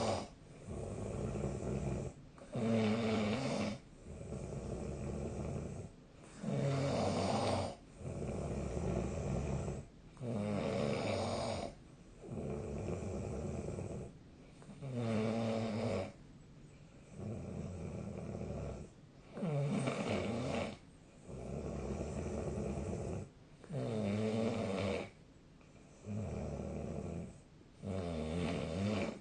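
A sleeping person snoring in a steady rhythm: a loud snore about every four seconds, with a softer breathing sound between each one.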